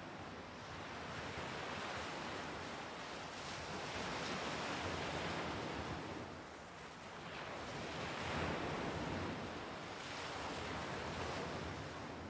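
Waves washing in: a hiss of surf that swells and fades every few seconds.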